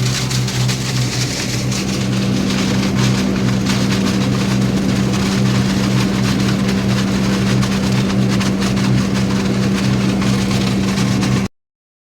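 Wirtgen SP 15 slipform paver's diesel engine running steadily with a constant low hum, cutting off suddenly near the end.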